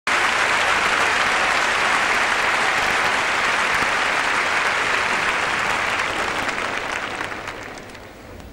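Large audience applauding steadily, fading away over the last couple of seconds.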